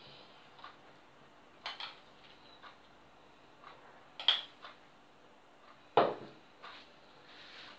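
A metal spoon clinks and scrapes against a bowl as nut-and-raisin filling is spooned onto dough, with a sharp ringing clink about four seconds in. A heavier knock comes about six seconds in as the bowl is set down on the table. A clock ticks faintly about once a second.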